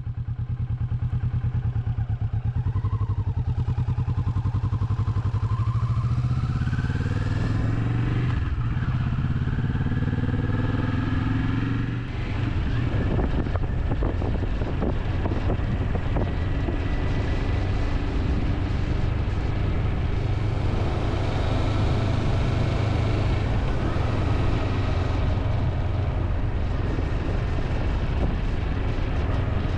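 Motorcycle engine under way: it rises in pitch twice as the bike speeds up, with brief dips about eight and twelve seconds in, then runs steadily at cruising speed with a haze of wind noise.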